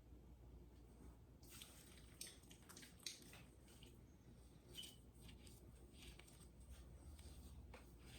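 Faint close-up rustling and crackling of hands rubbing skin during a neck massage, with scattered soft clicks and one short squeak about five seconds in.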